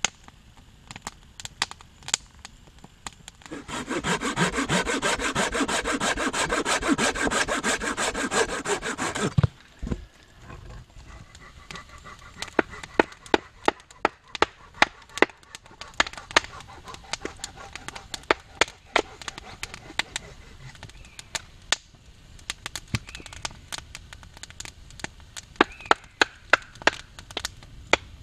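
A hand saw cutting through wood for about six seconds, starting a few seconds in. Afterwards a long run of sharp, irregular snaps and knocks.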